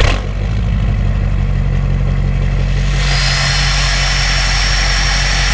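Ford pickup truck engine just after a cold start, heard at the exhaust tip: it catches loudly right at the start, then settles into a steady idle. About three seconds in, a hiss and a steady high whine join the idle.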